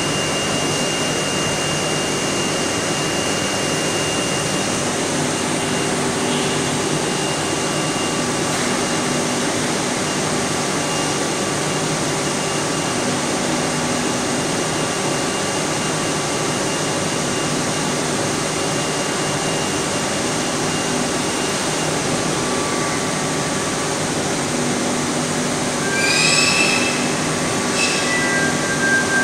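Steady machinery noise of a running plastic pipe extrusion line, a constant mechanical din with a few faint steady whines. Near the end there is a brief high squeal, and a shorter one just after it.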